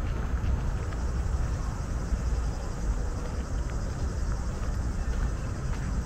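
Outdoor park ambience: a steady low rumble, with a few faint ticks scattered through it.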